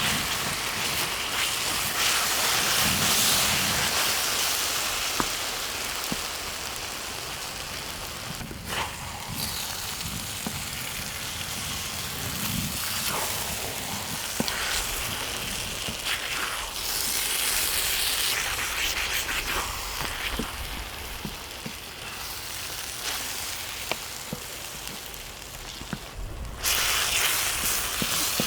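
Spicy marinated chicken (dak-galbi) sizzling and frying on a cast-iron cauldron lid, a steady hiss with scattered light clicks. The sizzle changes abruptly about nine seconds in and again near the end.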